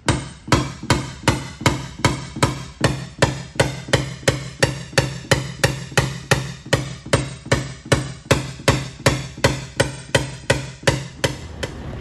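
Paintless-dent-repair hammer tapping a knockdown punch against the body line of an aluminum Ford F-150 fender, in a steady run of sharp taps about three a second that stop near the end. The taps knock down the high spots around a dent that is being glue-pulled.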